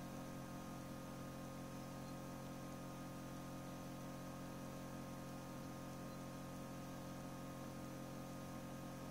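Egg incubator running: a steady electrical hum with a layer of hiss.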